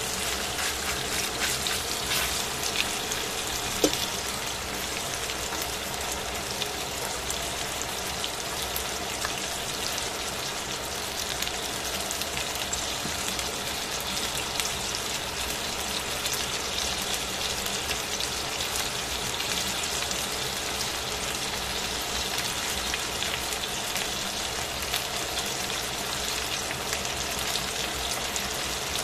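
Chicken pieces sizzling in hot oil in a pan: a steady, dense crackle of frying, with one sharp click about four seconds in.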